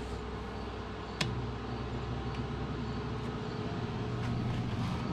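A click about a second in as the Central Machinery 8-inch portable ventilator is switched on low. Its fan motor then spins up into a low, steady hum that slowly grows louder, with flexible duct hose fitted on both the intake and the exhaust.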